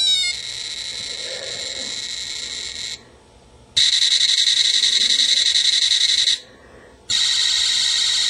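Built-in electronic sound effects of a custom Transformers Warpath toy, played through its small speaker: three effects one after another, each about two and a half seconds long with short pauses between, thin and tinny, the second and third louder than the first.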